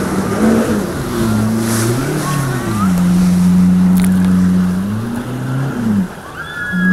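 Jet ski engine running under load while towing a banana boat, its pitch rising and falling with the throttle, over the steady rush of the wake. The engine eases off briefly about six seconds in, then picks up again.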